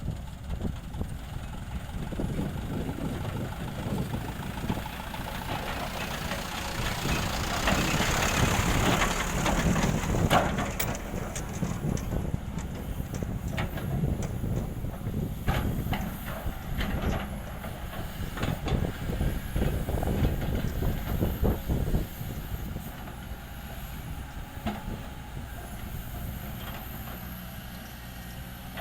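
Heavy diesel machinery running with a steady low rumble. About a quarter of the way in there is a loud hiss of air. Through the middle comes a run of knocks and clatters.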